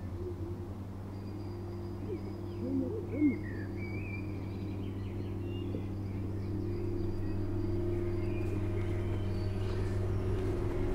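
Small birds chirping over a steady low hum that slowly grows louder, with two brief louder gliding calls about three seconds in.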